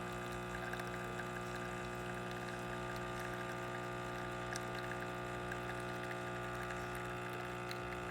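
Breville Dual Boiler espresso machine's vibratory pump humming steadily while an espresso shot pulls at about 9 bar of brew pressure.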